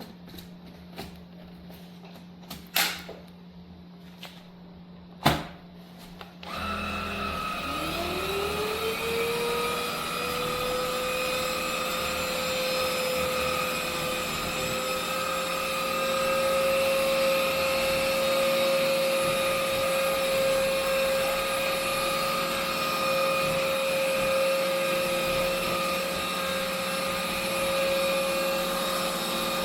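Two sharp clicks, then a VersLife cordless stick vacuum's motor starts about six seconds in. Its whine rises in pitch over a couple of seconds and settles into a steady run, a little louder a little past halfway.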